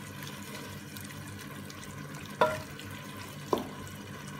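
Chicken, hotdog and tomato frying in soy sauce in a pan with a steady sizzle. A wooden spatula knocks against the pan twice, each knock ringing briefly.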